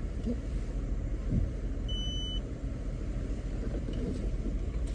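Car engine running with a steady low rumble, heard from inside the cabin. A short, high beep sounds once about two seconds in.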